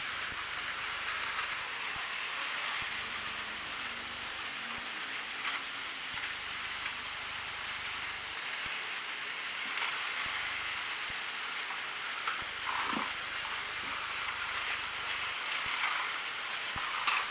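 Many battery-powered Takara Tomy Plarail toy trains running at once on plastic track: a steady, dense whirring and clattering of small motors and wheels, with a few scattered clicks.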